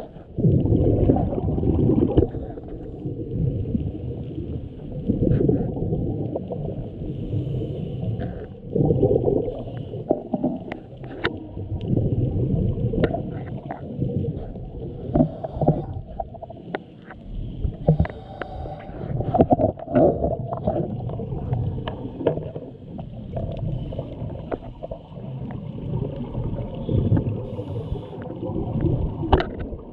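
Muffled underwater noise heard through a camera housing on a scuba dive. It comes in surges every few seconds, like a diver's exhaled bubbles rumbling up past the camera, with scattered sharp clicks in between.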